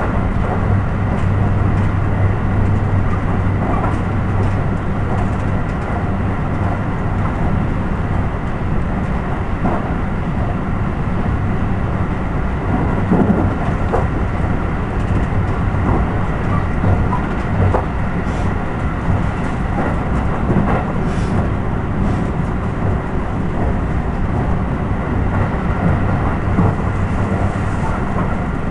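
Steady running noise of a train heard from inside the carriage: a low rumble with a steady hum and a faint high tone, and a few light clicks along the way.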